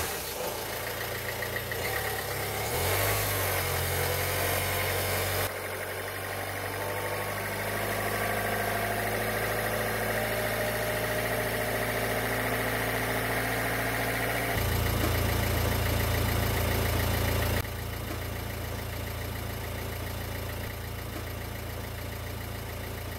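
Peugeot 308's 1.6 HDi four-cylinder diesel engine idling just after starting, once the fuel filter has been replaced and the fuel system bled of air. Its note changes in pitch and level in a few steps.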